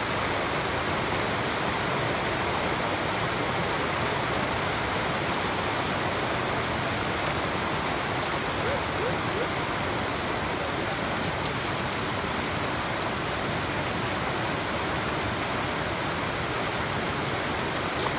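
A shallow mountain creek rushing fast over a rock slab: a steady, even rush of whitewater. Two faint sharp clicks come a little past the middle.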